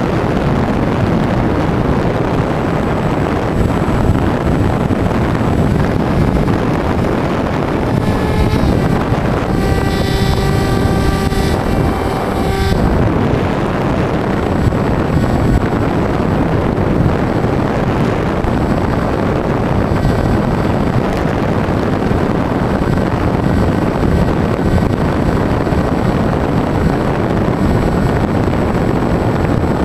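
Air rushing over the onboard camera of a Bixler 2 foam FPV plane in flight, with its electric motor and propeller running underneath. A steady motor whine stands out for a few seconds near the middle.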